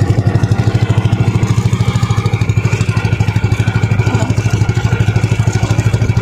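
Small outboard-style engine of an outrigger fishing bangka running steadily at low speed, a fast even putter of roughly a dozen beats a second.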